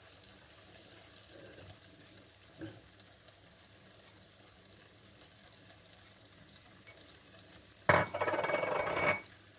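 Wooden spatula stirring chana dal and spinach in a stainless steel pan, with a faint sizzle from the simmering dal. Near the end comes a louder scrape against the pan lasting about a second.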